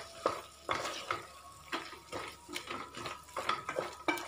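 Wooden spatula stirring a thick onion-tomato masala in a pressure cooker pot, with irregular scrapes and light knocks against the metal sides.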